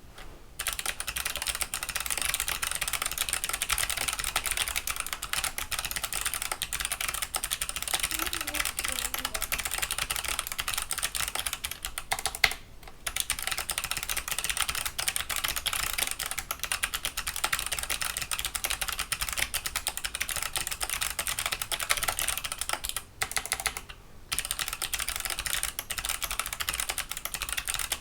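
Clicky mechanical keyboard switches clicking rapidly and densely, with short breaks about twelve and twenty-three seconds in.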